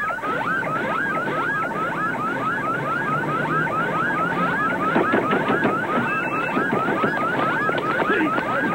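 Electronic security alarm sounding, a fast repeating rising whoop about three times a second. It has been set off by a security card inserted the wrong way up at a building entrance.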